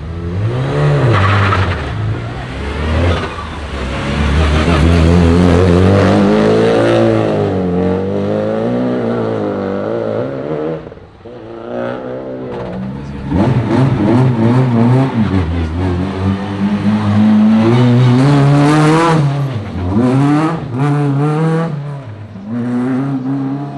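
Rally car engines revving hard, pitch climbing and falling again and again as the cars accelerate and brake to warm their tyres and brakes, with a short lull about eleven seconds in.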